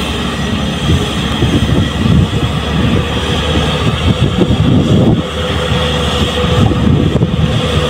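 JCB tracked excavator's diesel engine running under load with heavy low rumble, with irregular rattling and clatter as the bucket swings over and empties sand into the steel bed of a dump truck.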